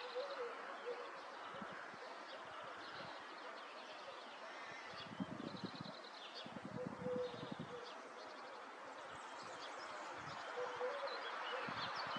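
Small birds chirping and twittering in short high calls scattered throughout, over a steady outdoor background noise.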